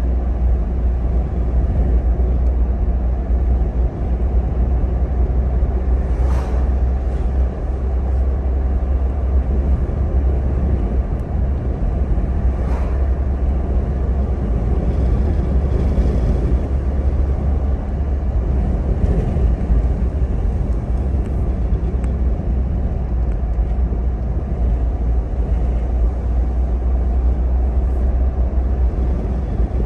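Steady low rumble of a car's engine and tyres on pavement, heard inside the cabin while driving, with a few faint clicks.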